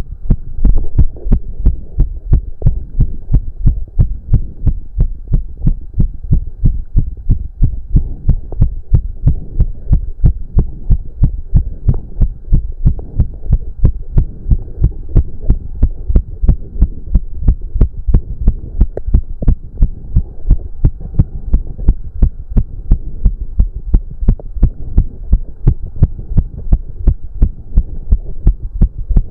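A man's heart beating fast and steady, more than two beats a second, racing from the exertion of a cardio workout.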